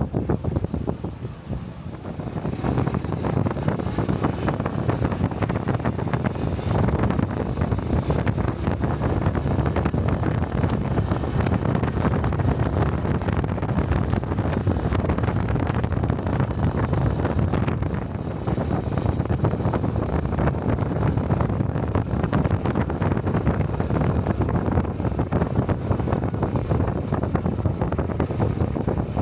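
Honda 125 cc Cub motorcycle's single-cylinder engine running under way, mixed with wind rushing over a helmet-mounted microphone. The sound eases for a moment about a second in, then stays steady.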